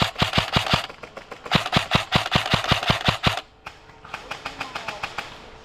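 Airsoft rifle firing full-auto in two bursts of rapid, evenly spaced shots, about nine a second, the second burst about two seconds long. A fainter burst of full-auto fire follows near the end.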